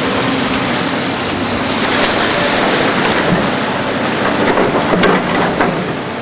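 Water rushing through a breach in a beaver dam, a loud steady noise, with a Volvo tracked excavator's diesel running underneath. A few sharp knocks come about five seconds in.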